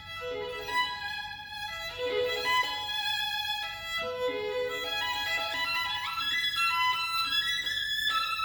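Solo violin playing a bowed melodic passage of changing notes, short notes mixed with held ones.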